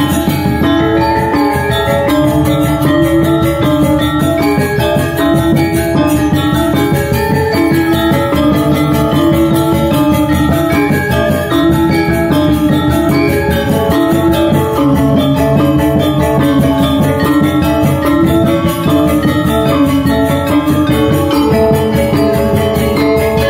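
Balinese gamelan gong ensemble playing a tabuh: bronze gangsa metallophones struck with mallets in a rapid, dense stream of ringing notes, over kendang drums and a small gong.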